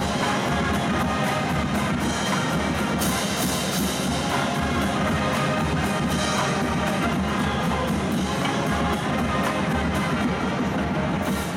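A full college marching band playing, brass over a steady beat of drums.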